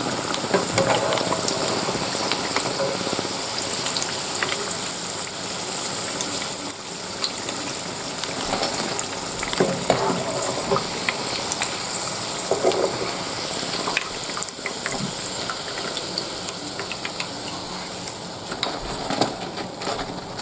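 Spinach pakoras (gram-flour batter fritters) deep-frying in hot oil, with a steady sizzle. Short clicks and scrapes come from a metal slotted spoon against the pan as the fritters are turned and lifted out.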